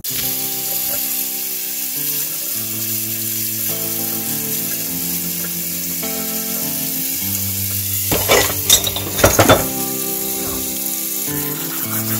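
Steady hiss of tap water running into a kitchen sink, under background music with held notes. About eight seconds in come a few sharp clatters as sliced cucumbers are tipped from a glass bowl into a stainless-steel mesh colander.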